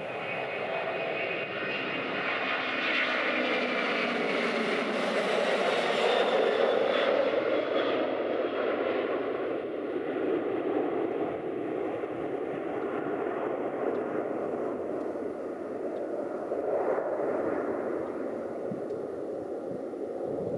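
Boeing 767-300 airliner's twin turbofan engines at takeoff thrust during lift-off and climb-out. The noise builds to its loudest about six seconds in as the jet passes, with a whine that drops in pitch, then slowly fades as the aircraft climbs away.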